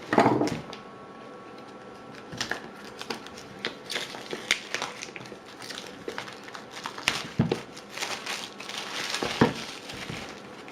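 Packaging of an Apple TV box being handled and opened by hand: irregular crinkling rustles and small clicks, with the loudest crackle at the very start and another near the end.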